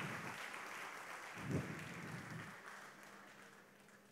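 Faint applause, a steady patter of clapping that dies away about three seconds in.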